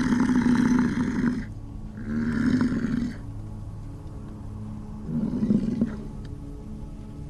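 Three loud roars over a steady low hum: the first about a second and a half long, the second about a second, and the third shorter and softer, about five seconds in.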